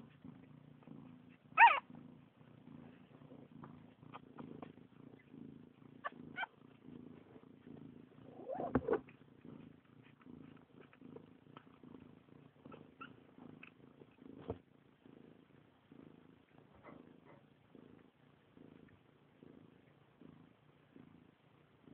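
Domestic cat purring softly and steadily while nursing a litter of puppies, with a few short high squeaks over it, the loudest about two seconds and nine seconds in.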